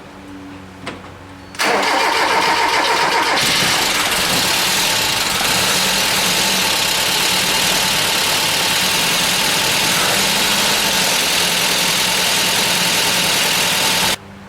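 Mazda B2200's four-cylinder engine starting about a second and a half in, catching within a couple of seconds and running loudly, then cutting off suddenly near the end. It runs rough: the engine is firing on only two cylinders after the head job.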